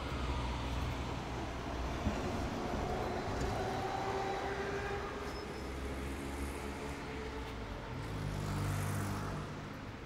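Street traffic: motor vehicles passing with a steady low rumble, one passing louder about eight to nine seconds in.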